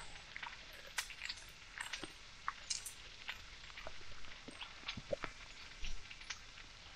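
Dog chewing and gnawing on a T-bone steak bone held in a hand: irregular crunching and clicking bites.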